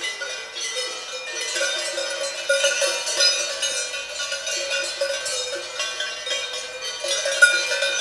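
Swiss Alpine cowbells clanking irregularly, several bells of different pitches ringing over one another in a continuous jangle.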